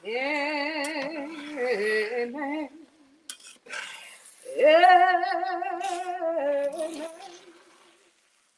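A woman singing a gospel phrase without accompaniment: two long held lines with wide vibrato, a pause of about two seconds between them, trailing off near the end.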